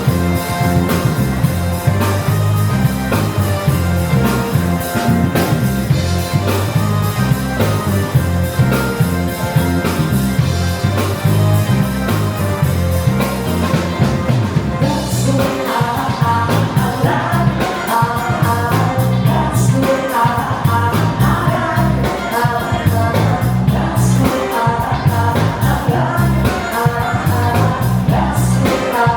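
Upbeat rock-style song with a singer, a steady drum beat and bass; the melody grows busier about halfway through.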